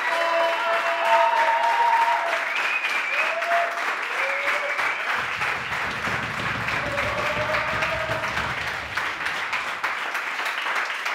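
Audience applauding steadily, a dense patter of clapping hands, with a few voices calling out over it.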